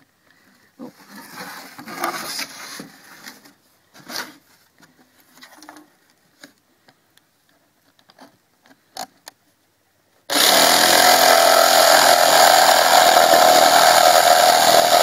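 Light knocks and scraping as a corded jigsaw is set on plywood, then about ten seconds in the jigsaw switches on abruptly and runs steadily at full speed, its blade in a drilled starter hole in the plywood.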